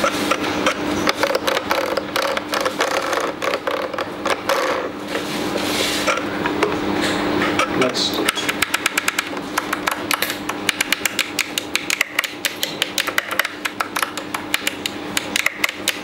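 Quick plastic clicking of the toggle switches and knobs on a RadioLink drone radio transmitter as each one is flipped in a function test. The clicks come faster and closer together from about halfway through.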